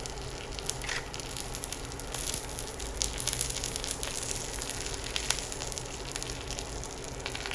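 A tadka (tempering): mustard seeds, urad dal and curry leaves sizzling in a little hot oil in a small tempering pan. A steady hiss runs through it, with frequent small crackles and pops.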